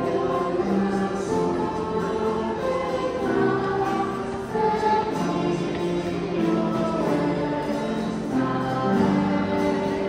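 Children's and youth choir singing a hymn in held, flowing phrases, accompanied by grand piano.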